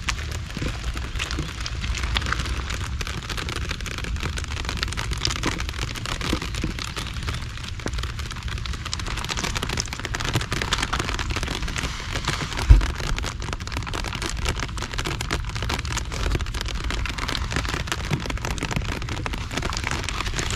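Heavy typhoon rain falling steadily, with many separate drop hits and a low rumble underneath. There is one low thump a little past halfway.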